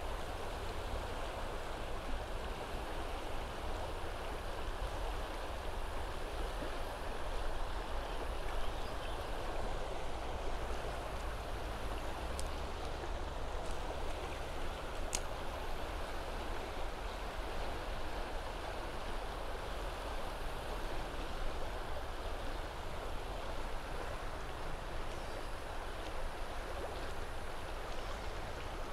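River water rushing over shallow rapids below a low spillway step: a steady, even rush of moving water.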